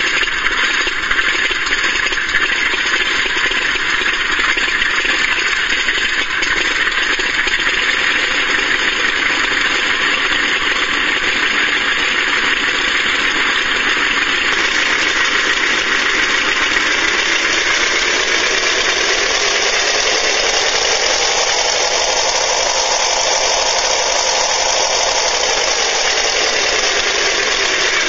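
Simulated WWII piston aircraft engine played by an RC model sound unit, running steadily. About halfway through it revs up, rising in pitch to a peak, then eases back down near the end.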